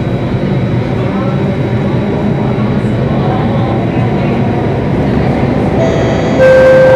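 Singapore MRT train running through a tunnel, a steady rumble heard from inside the carriage. Near the end a two-note chime begins, its lower note held and louder than the train.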